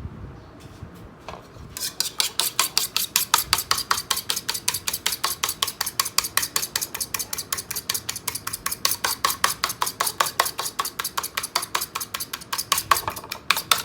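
An egg being beaten in a bowl by hand, the utensil clicking rapidly and steadily against the bowl at about six strokes a second, starting about two seconds in.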